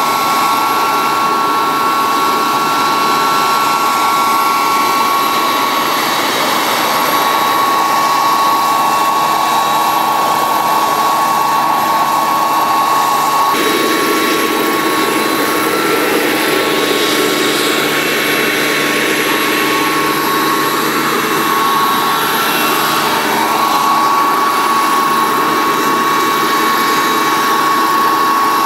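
JetCat microturbine powering a large radio-controlled CH-53 Super Stallion helicopter model in a low hover, running steadily with a high whine over a broad rushing noise. The sound shifts abruptly about halfway through, the whine briefly weaker before it returns near the end.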